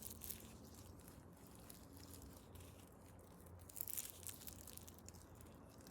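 Faint, soft crackling and squelching of a cut-open foam squishy toy, its sticky, slime-like filling being squeezed and pulled by hand, a little louder about four seconds in.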